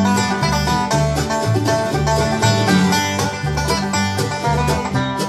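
Acoustic string jam: several guitars and other plucked string instruments playing a tune together, with quick picked notes over a moving bass line.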